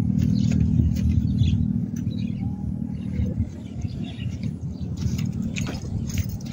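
Birds chirping over a steady low rumble that grows quieter about halfway through.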